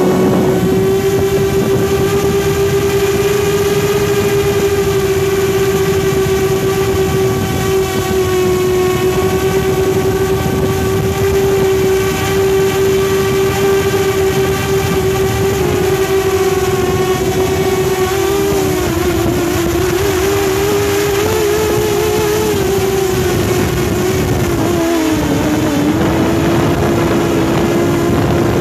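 Quadcopter's motors and propellers running with a steady, high buzzing hum, heard up close from a heavy phone slung beneath the drone, so the motors are working under load. In the second half the pitch wavers up and down for several seconds, then steadies again.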